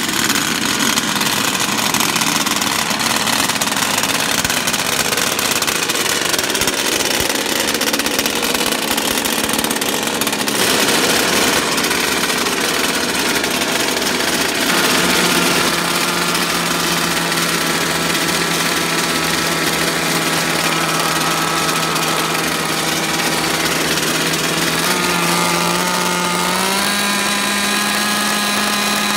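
Small two-stroke gas engine running steadily, its pitch stepping up a little near the end.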